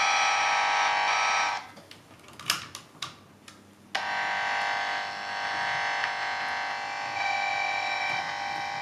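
Trend Networks R180001 amplifier probe's speaker sounding a buzzy digital-mode trace tone. About a second and a half in, it cuts out for a couple of seconds with a few clicks, then comes back with a changed tone, the change that comes as the traced cable is connected to or disconnected from the switch, whose port shorts the pins.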